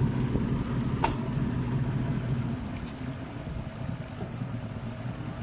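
Motorboat engine running steadily while towing a banana boat, under the rush of wind and water, with one sharp click about a second in.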